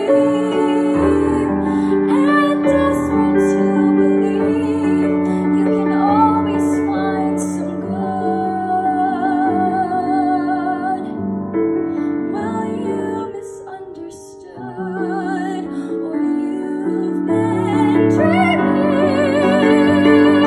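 A woman singing a slow musical-theatre ballad into a microphone, her voice held on long notes with vibrato, over piano accompaniment. The music quietens briefly a little past the middle, then builds again near the end.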